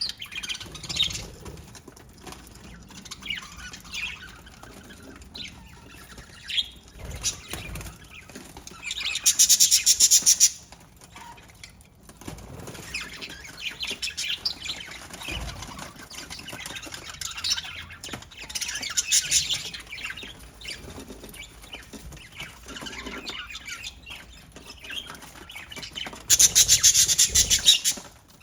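Budgies chirping and chattering, with two loud bursts of wing flapping, one about ten seconds in and one near the end.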